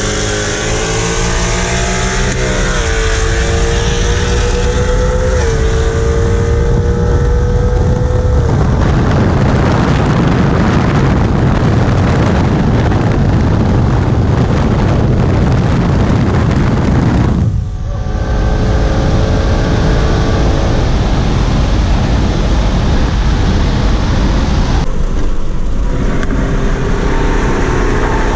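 Engine of a naturally aspirated car with a Ford 10R80 ten-speed automatic pulling at full throttle, heard from inside the car. The revs climb and drop back with quick upshifts about two and a half and five and a half seconds in. Then comes a loud steady rush of engine, wind and road noise at speed. The sound falls away briefly about eighteen seconds in, then the engine carries on at a steadier note.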